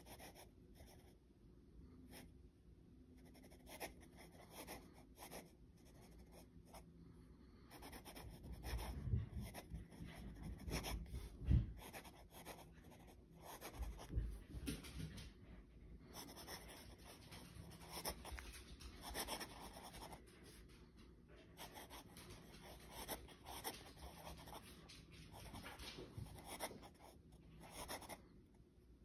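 Sailor 1911 Professional Slim fountain pen nib scratching across lined paper, writing in short strokes with brief pauses. A few soft thumps come partway through.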